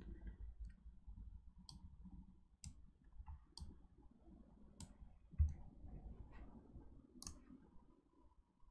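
Faint computer mouse clicks, about five spread out over several seconds, with one low thump about five and a half seconds in.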